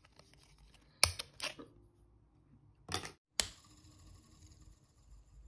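Sharp plastic clicks from a 3D-printed print-in-place air spinner as its nested rings are handled and set spinning: a few clicks about a second in, and two more around three seconds in.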